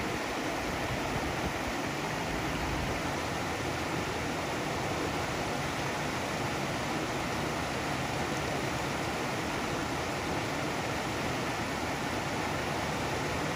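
Water pouring out of culvert pipes under a low concrete causeway and rushing over the stones of a shallow stream: a steady, even rush that does not change.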